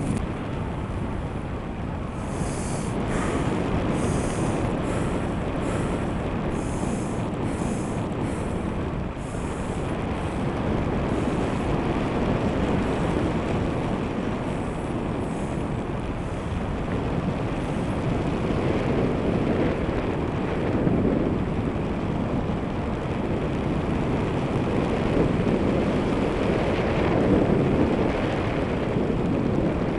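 Steady wind rushing over the camera microphone from the airflow of a tandem paraglider in flight, with brief extra gusts of hiss in the first ten seconds.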